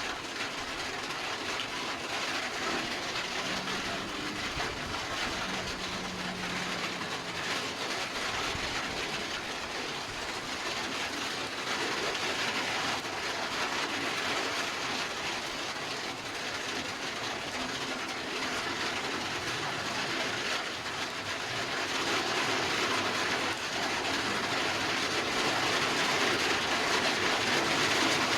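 Heavy rain pouring steadily, a dense even hiss that grows a little louder in the second half.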